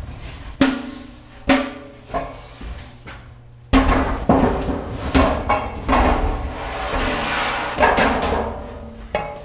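Metal powder cans for 16-inch guns clanking and ringing as they are handled. There are a few separate knocks in the first two seconds, then from about four seconds in a busy run of banging and scraping as a can is worked into the rack.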